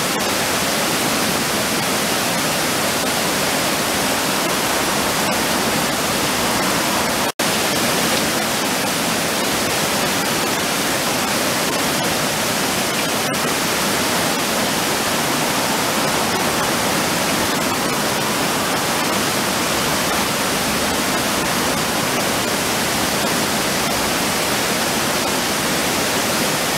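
River water pouring over a low stepped weir, a steady rushing, churning sound at an even level. It cuts out for a split second about seven seconds in.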